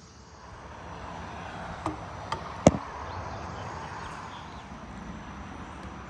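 Three sharp clicks in quick succession, the last one loudest, from a hummingbird feeder's wire hanger and a metal wall hook being handled, over a steady rush of outdoor background noise.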